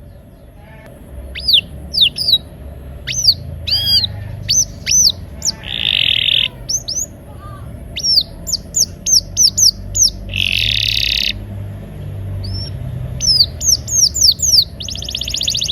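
Canary singing: a string of sharp, high, downward-sweeping whistled notes, broken by rapid rolls about six seconds in, around ten seconds in, and near the end, over a low steady hum.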